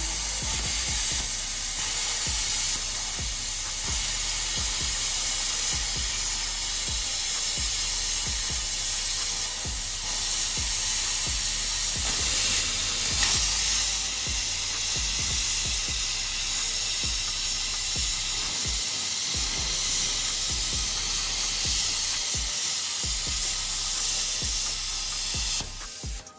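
Plasma cutter arc hissing steadily as the torch cuts a circle out of steel plate, then cutting off suddenly near the end as the cut finishes.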